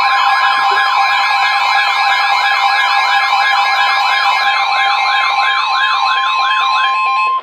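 Emergency alert attention signal ahead of a severe thunderstorm warning: a steady high tone, like the NOAA Weather Radio warning alarm, under a siren-like warble sweeping up and down a few times a second that slows slightly. It cuts off abruptly near the end.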